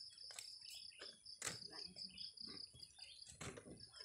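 Cut sugarcane stalks and dry cane leaves rustling and knocking as they are handled, with a few sharp clacks, the loudest about a second and a half in. Behind them insects trill steadily in an even, pulsing rhythm.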